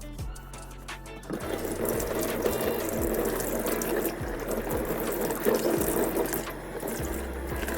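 Kitchen tap running water into the sink, starting about a second in after a few small clicks.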